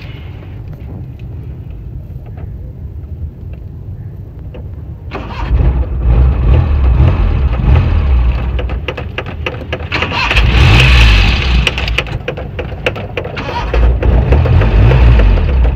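An old car's engine cranked over by its starter in about three long bursts, beginning about five seconds in: a hard cold start.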